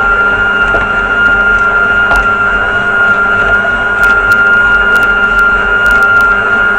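Stand mixer motor running steadily with a high whine, driving a rotary slicer attachment that is cutting pears into even slices, with light clicks now and then.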